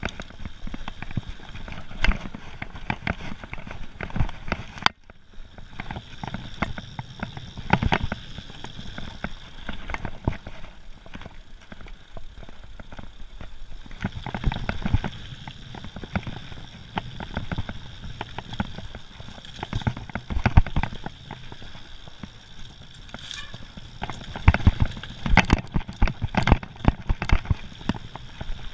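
Mountain bike riding fast down a rough gravel and dirt forest trail: constant tyre noise with frequent knocks and rattles as the bike hits stones and bumps. The sound cuts out briefly about five seconds in.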